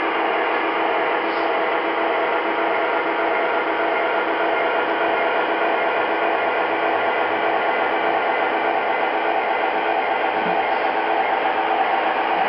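Lionel O scale model freight train running past, its cars' metal wheels rolling on the track with a steady mechanical whirr.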